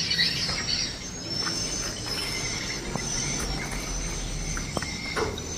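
Outdoor background sound: steady high-pitched chirping over a low background rumble.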